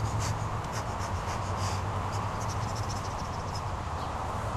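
A cat moving through tall grass, making light, irregular rustling ticks that thin out after about three seconds, over a steady low background hum.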